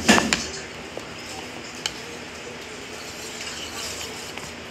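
Close-up eating sounds as noodles are eaten with wooden chopsticks: a short loud cluster of clicks and rustling at the start, then two single light clicks.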